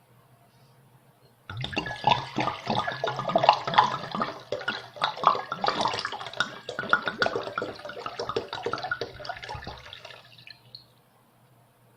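Water poured from a wine bottle into a bowl, glugging and splashing from about a second and a half in, tapering off and stopping near the end.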